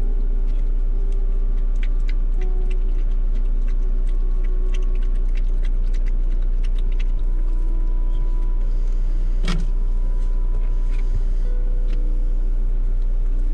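Steady low rumble of a car engine idling, heard inside the cabin. Over it come many small scattered clicks as a puppy eats from a hand, with one sharper click about nine and a half seconds in.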